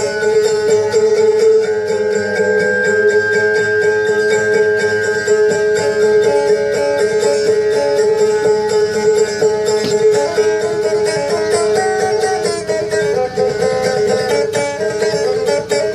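Kutiyapi, a two-stringed boat lute, being plucked in a fast, busy melody over a steady drone note.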